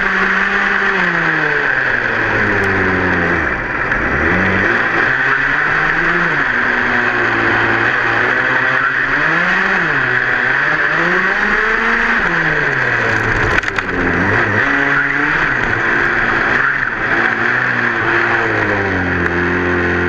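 Two-stroke gas engine of an HPI Baja 5B 1/5-scale RC buggy, heard from a camera on the car, revving up and down repeatedly as it drives. It settles to a steady note near the end.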